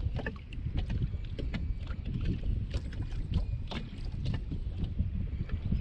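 Wind buffeting the microphone with a low rumble, while small waves slap irregularly against the kayak's hull in short sharp splashes.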